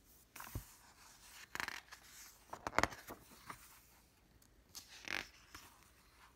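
Rustling and scraping of a picture book being handled, its pages turned, in several short bursts with a few soft clicks, the loudest about three seconds in.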